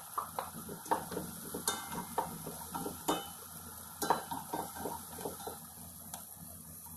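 Wooden spatula knocking and scraping against a plate and a pot as chopped garlic and ginger are pushed into the onions and stirred: a run of light, irregular clacks that grow fainter toward the end.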